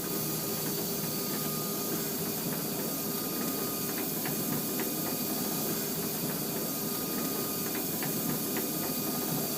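A vehicle running: a steady hiss over a low, even engine hum, with faint light ticks here and there.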